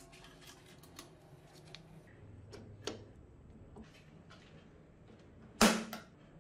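Faint scattered ticks, then one loud sharp clack with a short ring about five and a half seconds in: a switch being worked on a small metal lathe's control panel.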